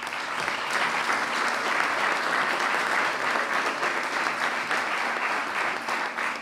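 Audience applauding steadily, many hands clapping, thinning near the end.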